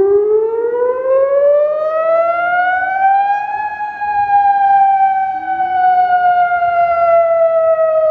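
ATI HPSS-32 electronic outdoor warning siren sounding its wail tone in a routine test: the pitch rises steadily for about three and a half seconds, then begins a slow fall.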